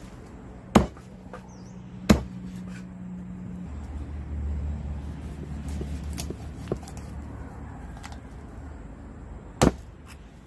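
Large knife chopping a whole chicken on a round wooden chopping block: three sharp chops, about a second in, at two seconds, and near the end, with lighter knife taps and cutting between.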